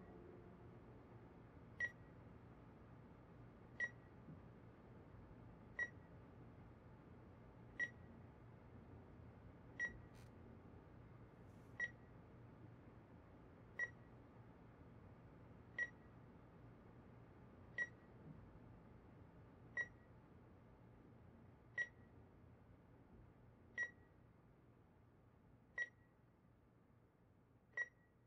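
Bedside patient monitor beeping steadily, one short high beep every two seconds, over a faint low room hum.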